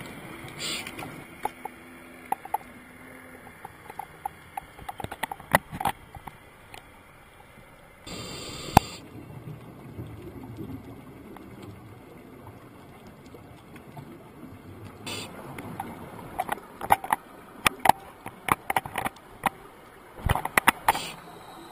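Muffled underwater sound heard through a camera's waterproof housing on a scuba dive: many scattered sharp clicks and taps, with a few second-long bursts of rushing noise like a diver's exhaled bubbles.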